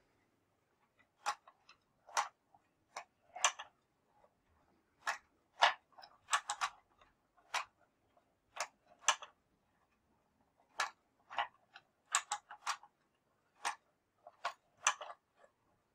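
Hand-cranked wooden automaton's mechanism clacking as the crank is turned: sharp clicks and knocks about one or two a second, unevenly spaced, some in quick pairs, starting about a second in.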